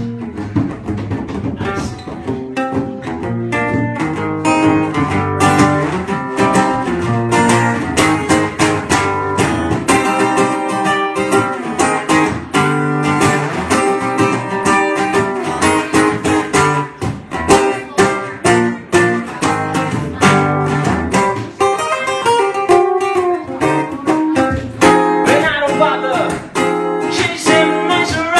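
Acoustic guitar playing a rockabilly instrumental break, with quick strummed and picked notes.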